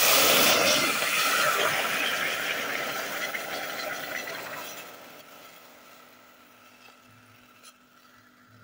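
Water poured into a stainless steel saucepan: a loud rush of splashing liquid that starts suddenly and fades away over about five seconds.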